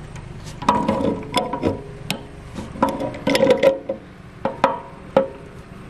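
Pipe wrench turning a threaded brass fitting off an old tank: a string of irregular metallic clicks and clinks, several with a brief ring.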